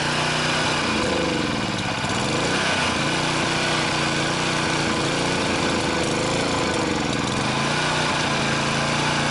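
Honda GCV160 single-cylinder four-stroke mower engine running with its choke being pulled off. Its speed dips and picks up again unevenly, a hunting idle, twice over: it is struggling for fuel, which the owner puts down to a blocked carburettor jet.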